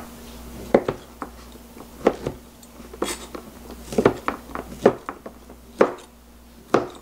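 Kitchen knife chopping frozen injeolmi rice cake into small pieces on a plastic cutting board: about ten sharp knocks at an uneven pace.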